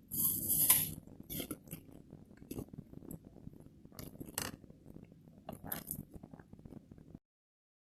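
A crisp, fresh Aomori apple being eaten: a loud crunch of a bite at the start, then chewing in short, crisp crunches. The sound cuts off suddenly about seven seconds in.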